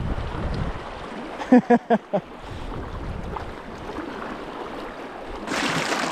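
Swift river current rushing, with wind buffeting the microphone in the first second. About a second and a half in comes a short laugh of four quick beats, and near the end the rushing turns louder and brighter.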